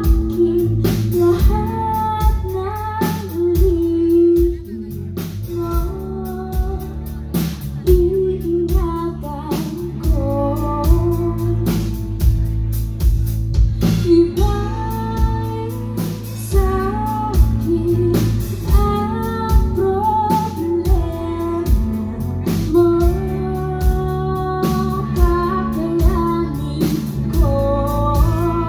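Live rock band playing a song: a woman singing the lead over guitar, bass and a drum kit keeping a steady beat.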